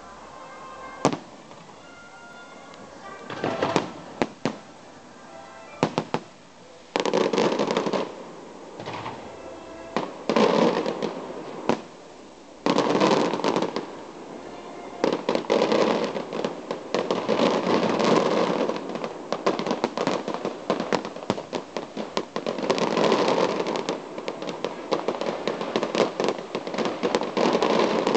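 Fireworks going off: scattered sharp bangs at first, then from about seven seconds in a dense run of bangs, pops and crackling bursts that comes in repeated waves of a second or two each.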